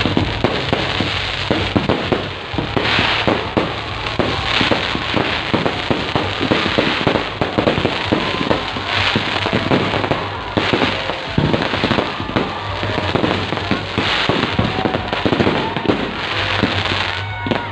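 Fireworks display: continuous dense crackling and popping, with louder bursts every few seconds.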